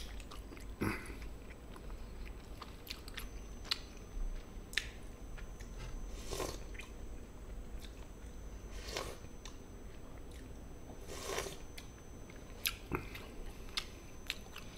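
A person chewing and biting food close to the microphone, with scattered small mouth clicks and a few brief crunches.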